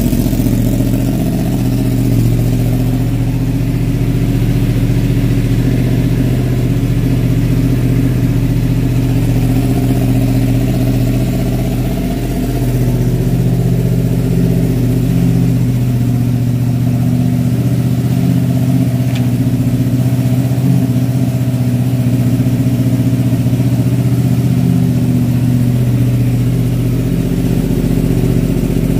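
2022 Yamaha R1's crossplane inline-four idling steadily through an M4 exhaust mid-pipe and the stock muffler, with the catalytic converter box removed.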